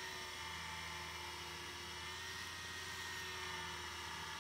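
Benchtop wood lathe running at a steady speed, its motor giving a steady whir with a thin high whine.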